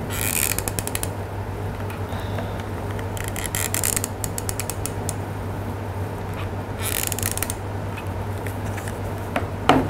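Hot glue gun's trigger feed clicking in quick rattling runs, three times, as hot glue is squeezed out; a sharp knock near the end.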